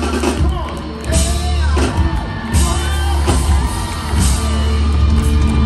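A live band playing loudly, with an electric guitar over a heavy, steady bass, and voices whooping and shouting over the music.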